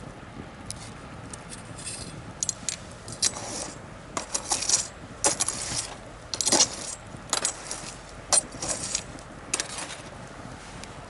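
Bonfire of burning wood crackling, with irregular sharp pops and snaps that come thick through the middle, over a low steady hiss.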